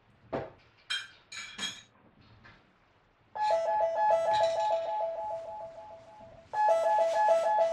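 Door intercom chime ringing for a parcel delivery: a quick electronic 'pipopipo' of two alternating notes. It plays about three seconds in and again about three seconds later. A few short faint sounds come before it.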